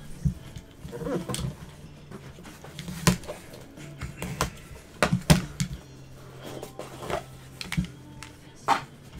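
A 2021 Leaf Metal Draft Football cardboard hobby box being handled and cut open: scattered sharp knocks, taps and clicks, loudest about three and five seconds in, over a steady low hum.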